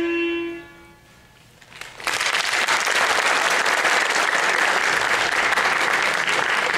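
The music's last held note fades away within the first second; after a short pause, an audience breaks into applause about two seconds in and keeps clapping steadily.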